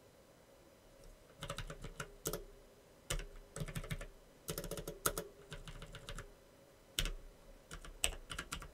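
Typing on a computer keyboard: after about a second of quiet, several short bursts of keystrokes with pauses between them.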